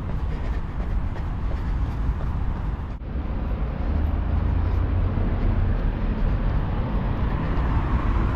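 Outdoor city ambience recorded on the move: a steady low rumble with a noisy wash above it. About three seconds in it changes abruptly to a louder, duller rumble.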